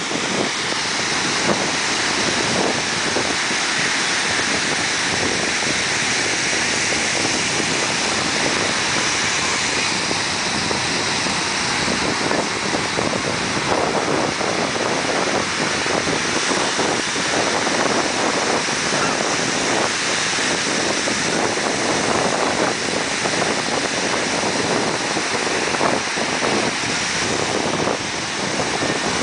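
Ocean surf breaking and washing in, a steady rush of waves.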